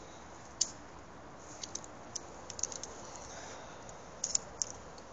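Scattered short, light clicks and ticks, some in quick pairs or clusters, over a steady faint outdoor hiss.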